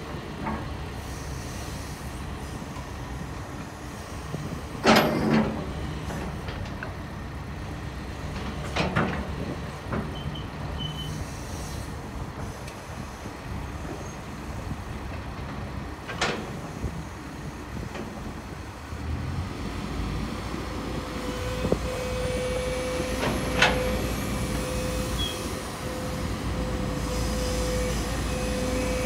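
Sumitomo SH200-5 hydraulic excavator running while its boom, arm and bucket are worked, with a handful of sharp clunks. About two-thirds of the way through, the engine note deepens under hydraulic load and a steady whine sets in.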